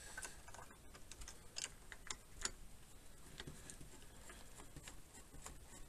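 Faint, irregular light clicks and taps of monitor-arm parts being handled and fitted together.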